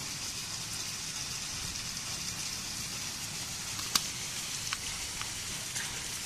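Steady high hiss, with one sharp tick about four seconds in and a few fainter ticks after it.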